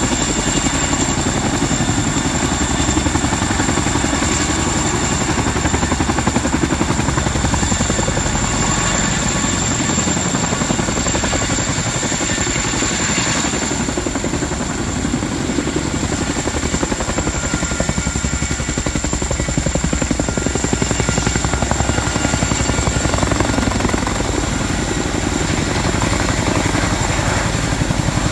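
RAF Chinook tandem-rotor helicopter, with its twin turboshaft engines, flying low and close with an underslung load: a steady, loud, rapid rotor beat with a constant high whine over it.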